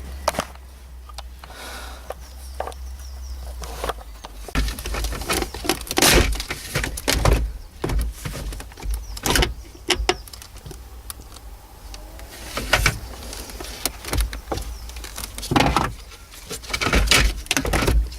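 Plastic knocks, clicks and rattles as a radio/CD head unit is worked and pulled out of a 2009 Toyota Verso's dashboard by hand, its side clips being forced loose. The knocks come in irregular bunches, busier from about four seconds in.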